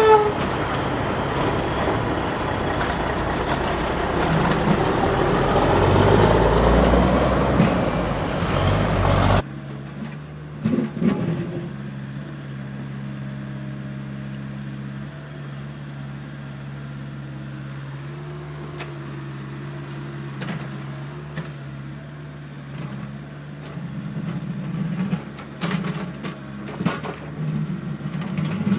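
Heavy diesel construction machinery working. A loud rumble builds about six seconds in, then cuts off suddenly about nine seconds in to a steady diesel idle with occasional clanks.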